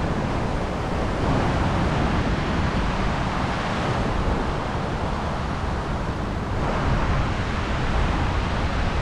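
Steady wash of sea surf on a beach, with wind rumbling on the microphone.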